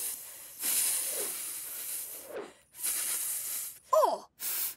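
A row of long hisses, like a drawn-out 'fff', four in a row with short gaps between them. A short high 'oh!' in a cartoon voice comes near the end.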